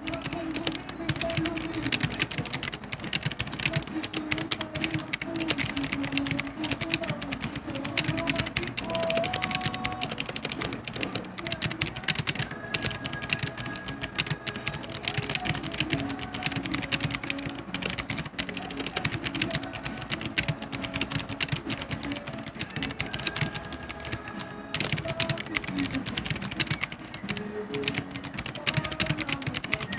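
Fast typing on a Gigaware K550 mechanical keyboard with clicky, tactile blue switches: a dense, continuous stream of loud clicks with a short pause about three quarters of the way through. Music plays faintly in the background.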